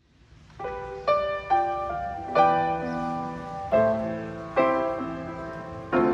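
Grand piano playing a slow chordal introduction, starting about half a second in. Chords are struck roughly once a second and left to ring.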